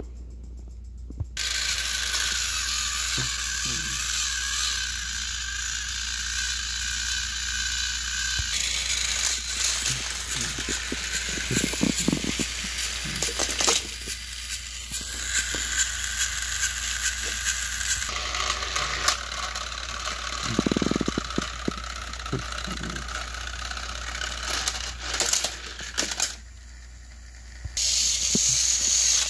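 Battery-powered Thomas & Friends toy engines running, a steady small-motor whir with gear rattle as the engines strain against each other on plastic track. It cuts out for about a second near the end, then starts again.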